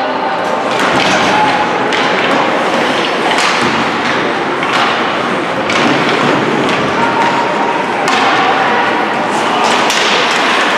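Ice hockey play in a rink: irregular knocks and thuds of puck and sticks against the boards, about one every second, over a steady din of voices.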